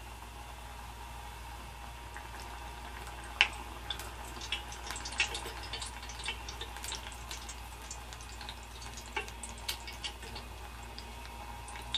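Namak pare (maida dough pastries) deep-frying in hot oil: a steady sizzle, then from about three and a half seconds in many scattered crackles and clicks as a slotted metal spatula turns them.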